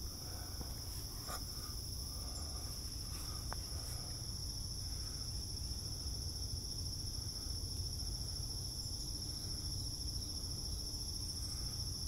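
Steady, high-pitched chorus of trilling insects, unbroken throughout, over a low steady rumble.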